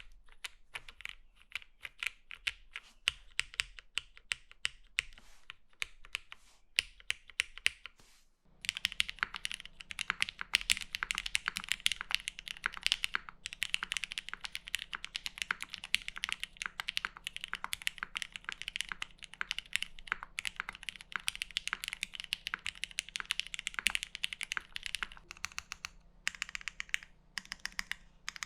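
Fast continuous typing on a Mode Sonnet 75% custom mechanical keyboard with GMK Moto keycaps and a polycarbonate bottom case, a sound-test recording of its key clicks. About eight and a half seconds in, the sound cuts to a louder, denser run of typing over a steady low hum.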